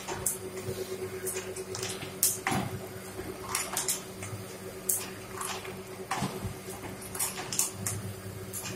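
Fully automatic double-die paper plate making machine running: a steady motor hum under irregular sharp clacks, about one or two a second, as it presses and ejects foil plates.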